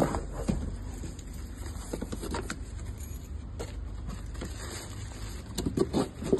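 Cardboard box flaps and clear plastic wrap rustling and crinkling as a box of rubber car floor mats is opened and handled, with a cluster of louder crinkles near the end. A steady low rumble sits underneath.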